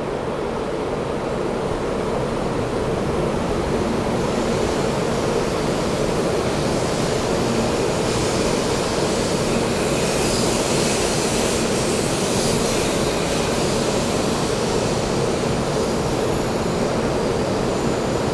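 Taiwan High Speed Rail 700T train running into an underground station platform and slowing: a steady rush of wheels and air that grows louder a few seconds in, with a hiss at its strongest around the middle as the cars pass.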